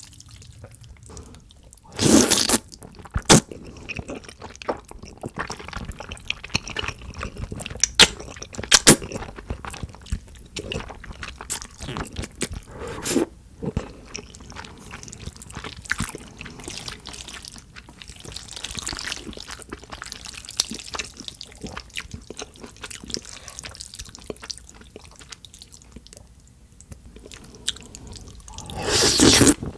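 Close-miked eating of jajangmyeon, saucy black bean noodles: two loud slurps of noodles, about two seconds in and near the end, with wet chewing and sticky mouth smacks in between.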